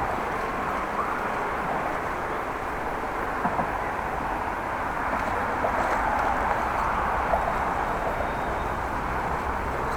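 Traffic noise and wind heard from a moving bicycle while crossing a ring-road off-ramp: a steady rush that swells a little about halfway through.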